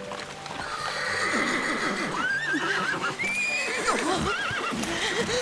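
Horses whinnying several times, shaky wavering calls bunched in the middle few seconds.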